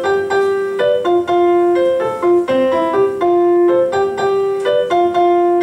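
Piano playing a Latin tumbao: a short syncopated figure of single held notes, repeated over and over.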